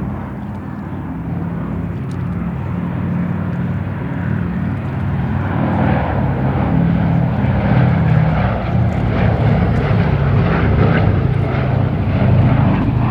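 Four Wright R-1820 Cyclone radial engines of a B-17G Flying Fortress, running with a deep, steady drone that grows gradually louder.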